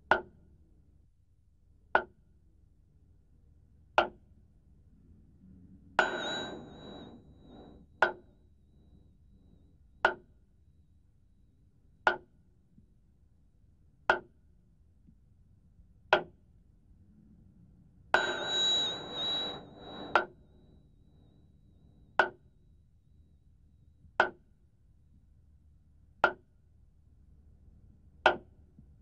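Sharp knocks evenly spaced, one every two seconds, each with a short ring. Twice, about six and eighteen seconds in, a knock comes with a longer high ringing tone.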